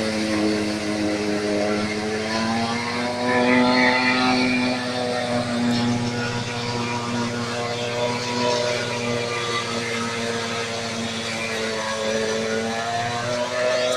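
Maschio Gaspardo Scorpion forage chopper running in Napier grass: a loud, steady machine drone of the driving engine and spinning chopper, its pitch wavering slightly.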